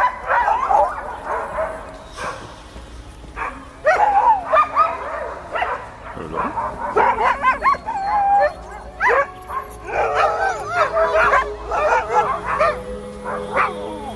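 Several sled dogs on a chain line barking and yelping in overlapping bursts, with short lulls about two and six seconds in.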